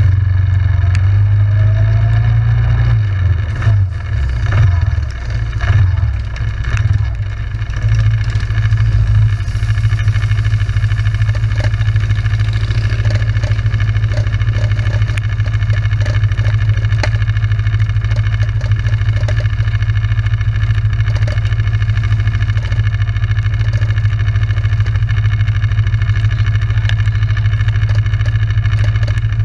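ATV engine running under way. The engine note wavers with changing throttle for the first several seconds, then settles into a steady drone.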